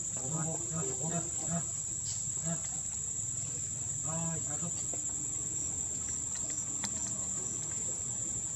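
Steady, high-pitched insect chorus, a continuous drone typical of crickets. Faint voices come in during the first second and a half and again around four seconds in.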